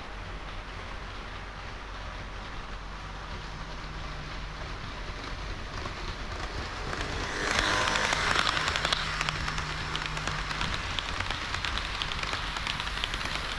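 HO-scale model train rolling along the layout track: a steady crackling rattle of small metal wheels on rail, full of tiny clicks, that grows louder about seven and a half seconds in, with a faint low hum under it.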